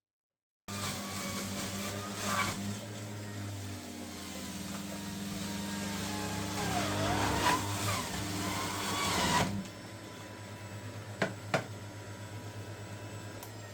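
An electric appliance motor running with a steady hum. It starts suddenly, a rushing noise over it cuts off about nine and a half seconds in while the hum continues, and two sharp clicks follow shortly after.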